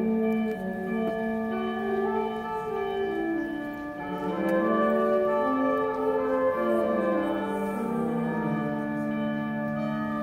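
School concert band playing, with brass holding long notes and chords under a moving line of notes that steps down and then climbs again.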